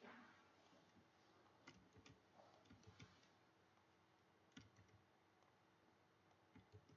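Near silence broken by a handful of faint, scattered clicks from a computer mouse.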